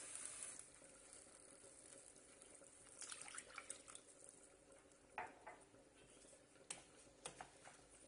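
Faint sounds of water being poured onto toasted rice in a pan: a steady pour that stops about half a second in, then scattered drips, light splashes and small clicks of a cup and wooden spoon against the pan.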